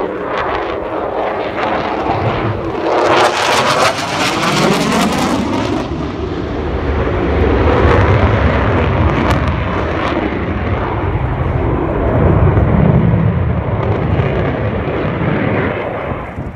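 F-16 fighter jet passing overhead, loud: a jet roar that sweeps down in pitch with a crackle about three seconds in, then turns to a heavy low rumble that drops away near the end.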